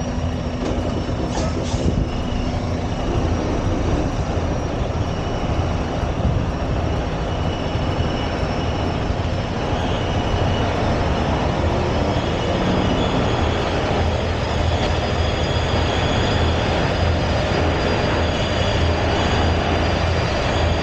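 Semi truck's diesel engine and tyres giving a deep, steady rumble as the tractor-trailer inches through a tight corrugated-steel tunnel, with a faint thin whine running over it.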